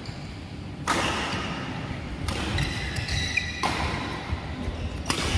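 A doubles badminton rally: rackets striking the shuttlecock four times, one sharp crack about every second and a half.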